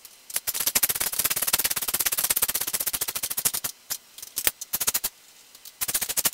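Hand ratchet wrench clicking rapidly, running down the bolts that hold a lawn tractor's seat pan on: one long run of clicks, then shorter bursts in the second half.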